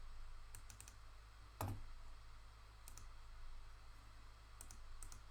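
Scattered faint clicks in small clusters, with one louder knock a little under two seconds in.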